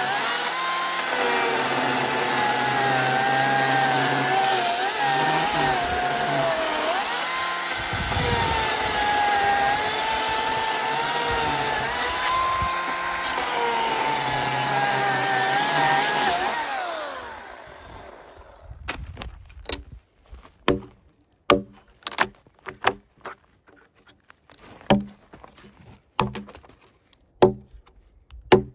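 Ryobi chainsaw cutting into a log, its whine dipping in pitch each time the chain bites and rising again as it eases off, for about the first seventeen seconds before it winds down. After that a hatchet chops into the same log, about a dozen sharp knocks roughly a second apart, knocking out wood between the saw cuts.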